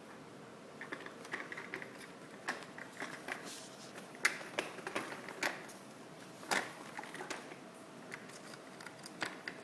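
Scattered light clicks and taps at an irregular pace, with a few sharper ones near the middle.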